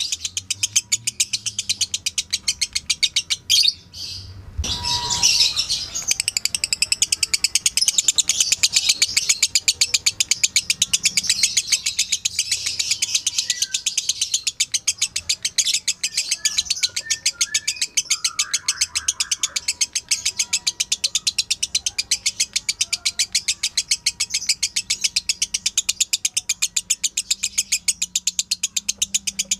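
Lovebird 'ngekek' song: a long, fast, evenly repeated high-pitched chattering trill of several notes a second, broken off briefly about four seconds in and then carried on without a pause.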